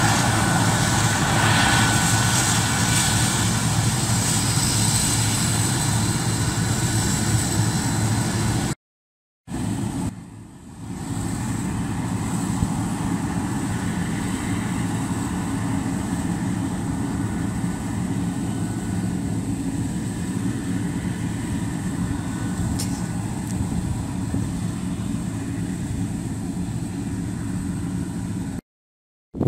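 Combine harvester running steadily at work, a deep engine hum under a hiss of threshing machinery. The sound cuts off abruptly twice, about nine seconds in and just before the end.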